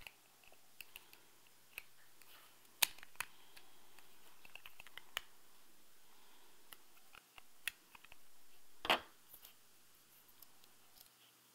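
Faint plastic clicks and taps from the two halves of a Toyota Highlander key fob's plastic case being pressed and snapped back together, with a sharper click about 3 s in and a louder, longer one about 9 s in.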